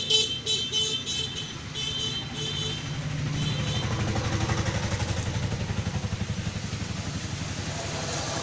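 Road vehicle sounding its horn in a quick run of short beeps, then its engine swelling and fading as it drives past.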